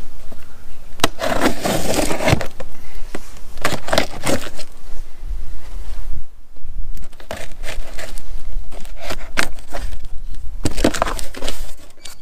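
A pocket knife slits the packing tape on a cardboard box, then the cardboard flaps are pulled open. The sound is an irregular run of scraping and ripping noises with many sharp clicks.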